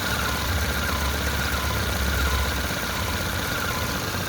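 Car engine idling, with a steady high-pitched whine from the accessory belt area over the low engine hum: a noise from the belt drive that the mechanic traces to a failing water pump.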